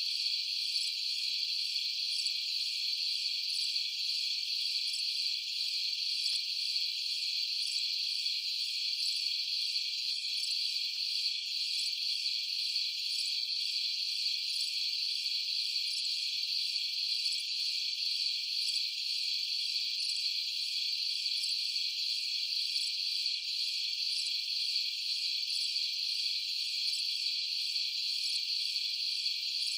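Night chorus of crickets and other insects, a dense steady high-pitched trilling with a faint regular pulse above it.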